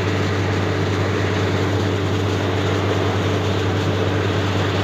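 A truck-mounted borewell drilling rig running steadily: a constant low engine and compressor drone under a loud rushing hiss of air and water spraying out of the borehole, the sign that the bore has struck water.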